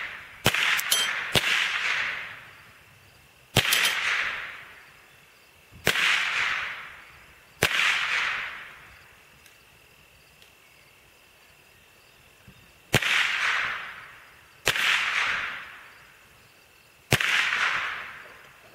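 Semi-automatic Ruger SR-22 .22 LR rifle firing about nine single shots at uneven intervals at a steel paddle target, each a sharp crack trailing off over about a second. There is a long pause in the middle before three more shots near the end.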